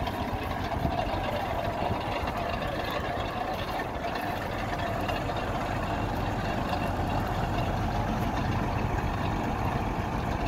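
A tubewell boring rig's engine running steadily with a constant low rumble.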